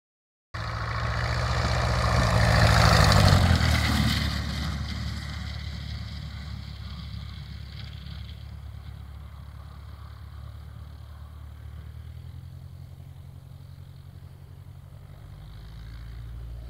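Light aircraft's piston engine and propeller running, loudest about three seconds in as the aircraft passes close, then fading to a steady, more distant drone that grows slightly louder again near the end.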